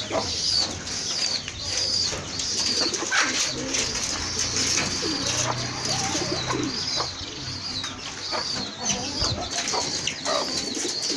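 Domestic chickens and pigeons calling together: a high peep repeats steadily about every three-quarters of a second over lower, irregular clucks and coos.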